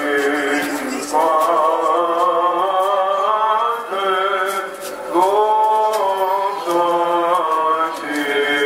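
A male voice chanting in long, held notes that glide between pitches: Greek Orthodox church chant of the evening service.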